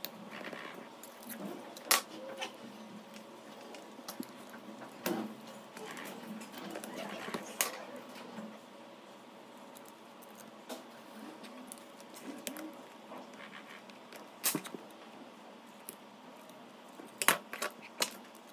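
Small plastic parts of a portable neck fan being handled and pried apart: scattered sharp clicks and taps with quieter handling noise between, the strongest click a couple of seconds in and a quick cluster of clicks near the end.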